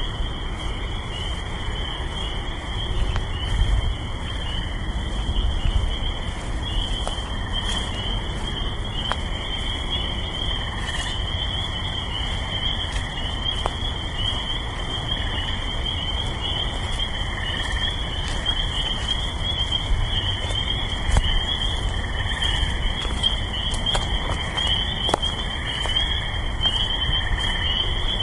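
Dense chorus of frogs calling from a swamp and the trees, a continuous high-pitched trilling, with the low steady rumble of distant highway traffic underneath.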